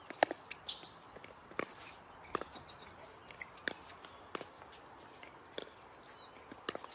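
Pickleball paddles popping a plastic ball back and forth in a soft exchange at the net: sharp hits about once a second, with fainter ticks between them.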